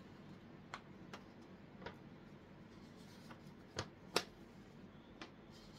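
Light, sharp clicks and taps of a paper greeting card being handled on a desk, about seven in all, the loudest about four seconds in.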